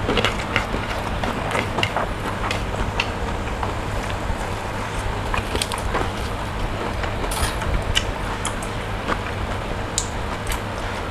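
A person eating by hand: chewing, with small clicks and squishes from fingers working food and a lettuce leaf, over a steady low hum.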